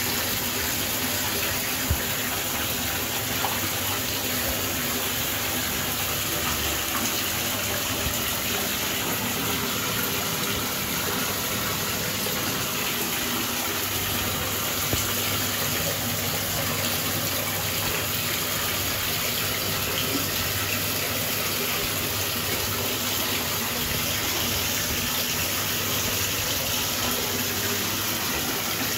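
Whirlpool tub jets running during a jet test: a steady churning gush of water, with a low hum underneath.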